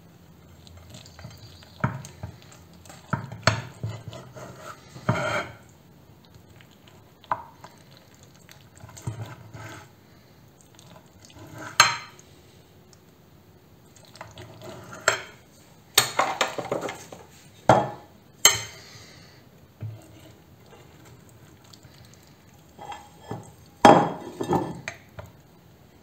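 A kitchen knife cutting through a baked stuffed-eggplant dish, scraping and knocking against the ceramic plate in irregular sharp clinks; near the end a cake server scrapes under a slice to lift it out.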